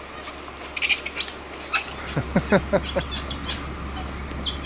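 Chirping animal calls: a few high, short chirps about a second in, then a quick run of calls that each sweep steeply downward, around the middle.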